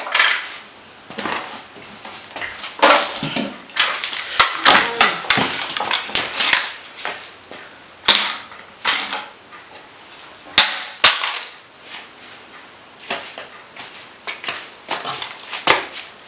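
Plastic toys clattering on a wooden tabletop as they are handled, pushed along and set down: irregular sharp clicks, knocks and short scrapes.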